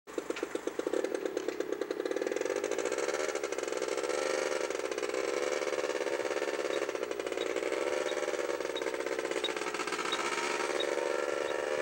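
A motor vehicle engine starts with a rapid pulsing, then runs with its pitch wavering gently up and down. From the middle onward a faint tick repeats about every 0.7 seconds.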